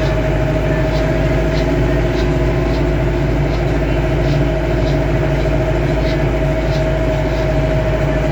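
Lovol M504 tractor's gearbox and engine running at road speed above 25 km/h, with a steady whine over the engine rumble and a faint regular ticking about one and a half times a second. This is the gearbox noise that appears above 25 km/h, cause unknown to the owner.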